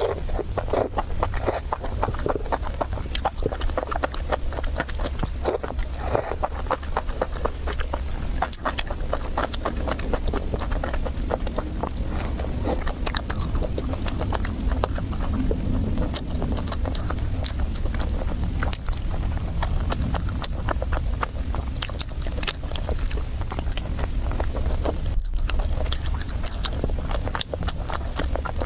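Close-miked eating: steady wet chewing and mouth smacking, full of short sharp clicks, over a constant low hum.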